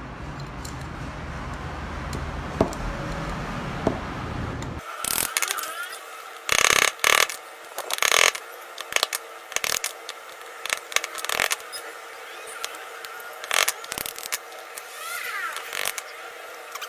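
Metal pistol parts being handled and worked by hand: irregular scrapes and clicks. A steady low hum fills the first five seconds and then stops abruptly.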